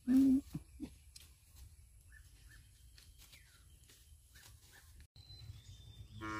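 A dog gives a single short, loud bark at the very start, with faint bird chirps scattered through. Near the end a cow begins a long, low moo.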